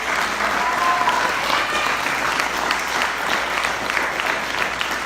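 Congregation applauding: many hands clapping together in a steady, dense patter.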